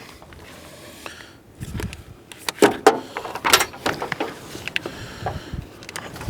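Scattered, irregular knocks and clunks from batteries being set into the truck and their cables handled.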